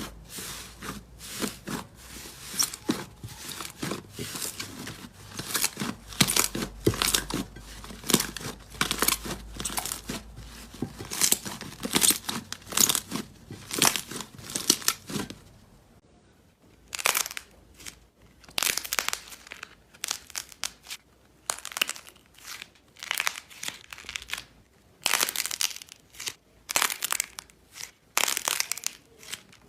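Slime being squeezed and worked by hand, giving quick crackling, popping sounds. The crackles come thick and fast for the first half, stop briefly just past the middle, then come back in sparser clusters.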